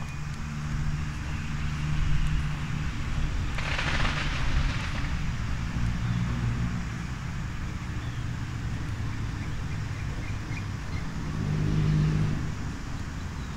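Road traffic: engines of passing vehicles running, swelling about two seconds in and again near the end, with a brief hiss about four seconds in.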